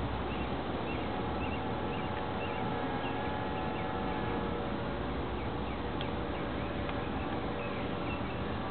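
Steady outdoor noise with wind on the microphone and a steady hum, with small, quick chirps repeating throughout, like birds chirping.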